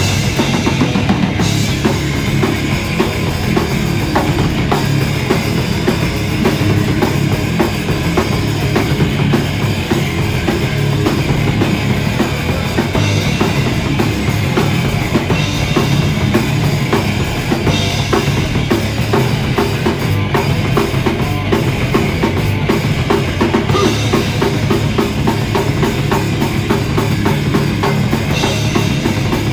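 Live band playing loud rock, with a full drum kit driving it and bass drum and snare hits to the fore. It is recorded on a phone.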